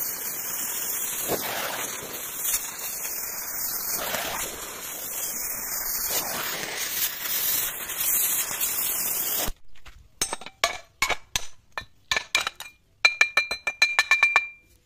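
A steady rushing, hissing noise that cuts off suddenly after about nine and a half seconds, followed by a run of sharp metallic clinks and taps, some of them ringing briefly.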